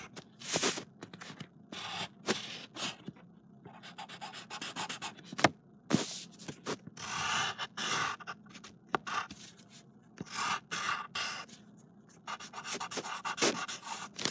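Pencil scratching on paper in short, uneven strokes, with a few longer stretches of rubbing, as a dog's ear is drawn and shaded.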